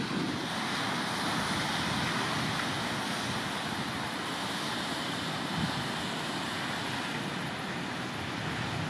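Ocean surf breaking and washing in among shoreline boulders, a steady unbroken rush of noise.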